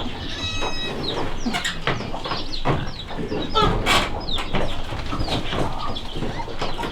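Chickens clucking: many short, quick calls throughout, with a few light knocks.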